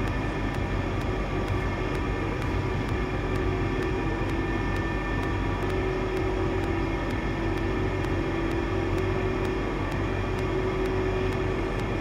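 A steady droning hum with several held tones.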